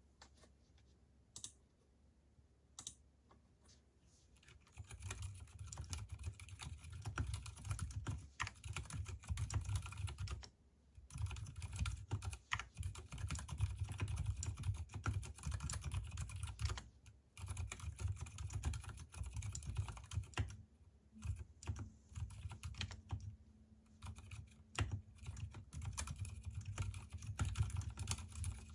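Mechanical keyboard with Gateron silent brown switches being typed on, a dense run of muted keystrokes with a deep, low body; its switches are not lubricated, only its stabilizers. The first few seconds hold only a couple of single keystrokes, then steady typing begins, broken by brief pauses.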